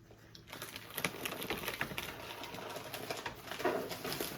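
Dense, rapid crackling and clicking that starts about half a second in and carries on steadily.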